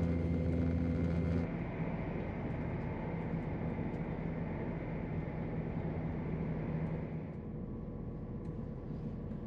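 A Class 168 diesel multiple unit heard from inside while running along, with a steady diesel engine hum over the running noise. The hum cuts off abruptly about one and a half seconds in, leaving quieter running noise with a fainter hum that fades near the end.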